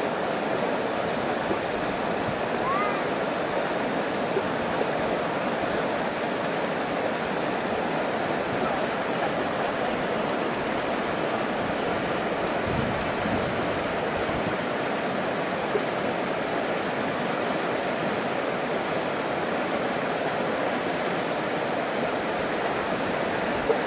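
Fast, muddy river water rushing steadily over shallow rapids.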